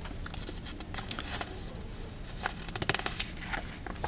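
Faint handling noise from a hand moving a marker over paper: scattered light taps and rustles, with a quick run of small clicks about three seconds in.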